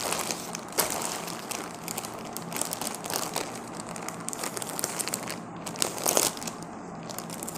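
Plastic packaging crinkling and rustling as hands handle it: the clear polybag around a T-shirt and the courier mailer beneath it. Louder rustles come about a second in and again about six seconds in.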